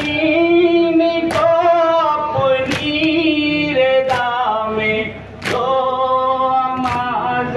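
A noha, the Shia lament for Muharram, sung in long held lines, with a sharp chest-beating slap of matam about every one and a half seconds in time with it, six strikes in all.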